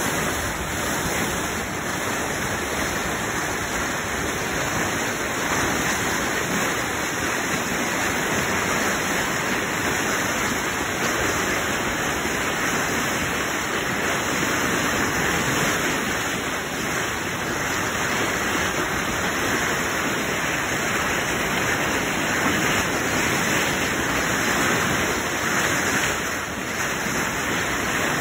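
Floodwater in a swollen, muddy river rushing past in a flash flood: a steady, loud wash of turbulent water with no breaks.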